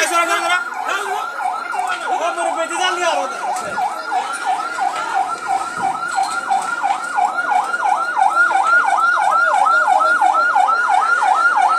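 Fire engine's electronic siren in fast yelp mode, its pitch sweeping up and down about three times a second, growing louder in the second half.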